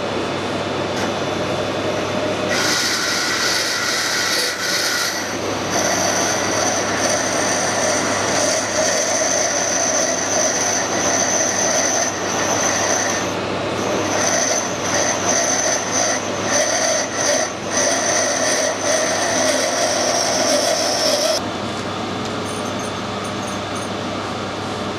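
Metal lathe running at a slowed spindle speed while a tool cuts brass stock. From about two and a half seconds in, the cut adds a high-pitched ringing whine, briefly broken near the middle, and it stops a few seconds before the end, leaving the lathe running alone.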